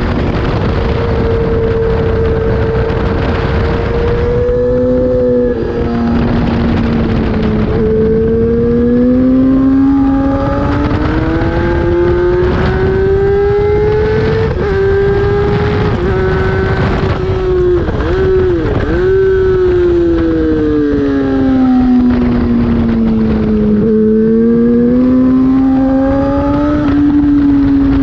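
Race motorcycle engine at full racing revs. Its note climbs and falls with throttle and gear changes: a sudden drop about five seconds in, and quick dips in pitch past the middle. A heavy rush of wind buffets the microphone.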